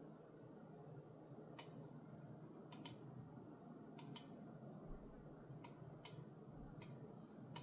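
Logitech G Pro X Superlight 2C wireless gaming mouse buttons being clicked: sharp, crisp clicks from its hybrid optical-mechanical switches, spaced irregularly about a second apart, some in quick pairs of press and release. A faint steady low hum runs underneath.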